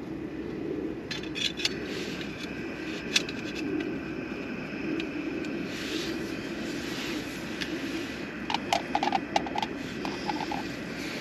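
Clinks and scrapes of metal camping cookware (a pot, its lid and a mug) being handled, with a few sharp knocks and a cluster of clicks near the end, over a steady low rumble.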